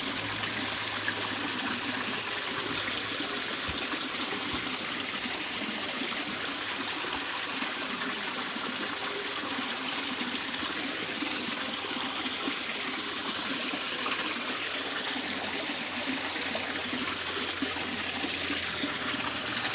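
Pond water flowing and trickling steadily from a fish pond's circulation pump, with a steady low hum. The flow is weak, which the owner puts down to the pump not running smoothly.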